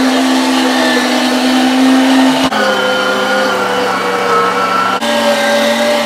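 Electric meat grinder's motor running steadily while it grinds chunks of beef brisket into mince. Its hum shifts slightly in pitch twice.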